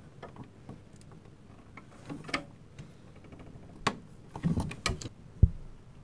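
Scattered plastic clicks and rustles as an 8-pin PCIe power cable connector is worked into a graphics card's power socket, with a sharper knock about five and a half seconds in.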